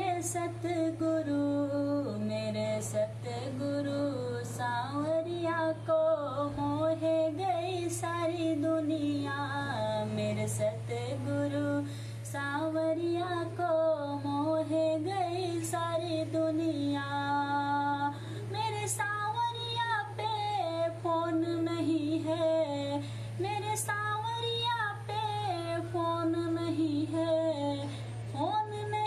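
A woman singing a devotional guru bhajan, a gliding, ornamented melody sung without a break, over a steady low hum.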